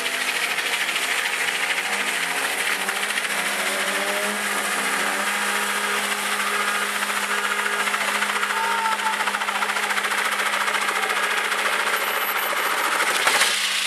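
Car doing a burnout: the engine is held at steady high revs while the spinning rear tyre screeches on the tarmac, with a louder surge near the end.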